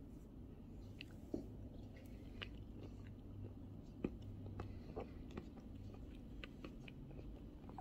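A person chewing almonds: faint, irregular crunches, with sharper cracks about a second and a half and four seconds in.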